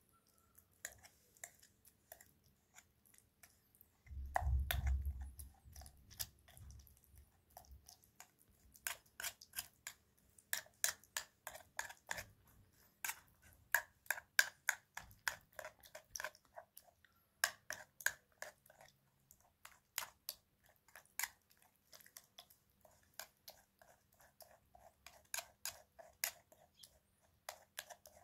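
A metal spoon stirs and mashes a thick tomato-paste mixture in a metal bowl, scraping and clicking against the bowl a few times a second. There is a brief low rumble about four seconds in.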